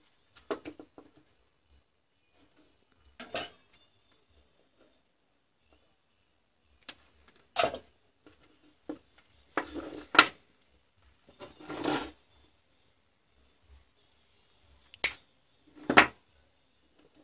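Handling noises from cylindrical lithium-ion cells and their wires: scattered clicks, taps and short rustles as the cells knock against each other and the wooden workbench, about eight in all, with the two sharpest taps near the end.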